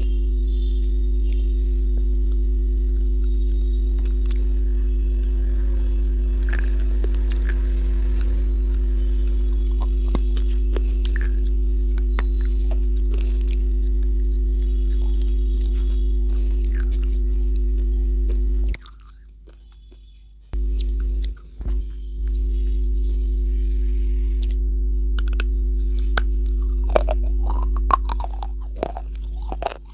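Close-miked biting and crunching of a hard, white, chalk-like slab, with scattered crisp crunches that grow thicker near the end. A loud, steady electrical hum runs underneath and drops out for about two seconds a little past the middle.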